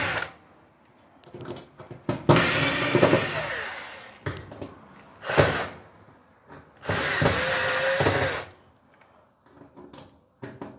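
Cordless drill-driver running in three short bursts, its motor pitch rising as it spins up, backing out the small screws that hold a washing machine's rear panel.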